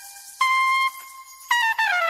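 Jazz trumpet playing sparse phrases with quiet gaps between them: a short held note about half a second in, then after a pause a louder note about a second and a half in that starts sliding down in pitch.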